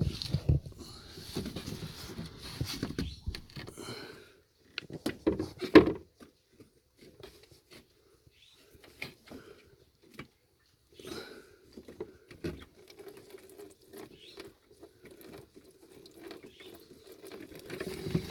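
Scattered knocks, scrapes and rustling of hands working under a car while the radiator drain plug is twisted open, with a sharp knock about six seconds in.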